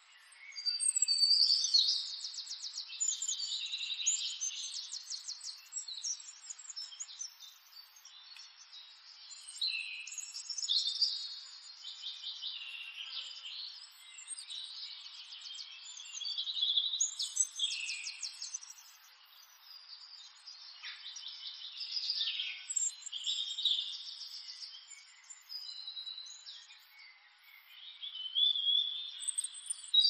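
Small birds chirping, several calls overlapping, with rapid high trills coming in waves every few seconds.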